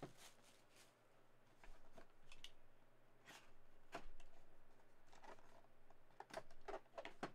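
Faint handling sounds of a cardboard collectible box being unsealed: crinkling shrink-wrap plastic, then a small cutter slitting the box's seal, heard as short scrapes and clicks, with a few sharper strokes near the end.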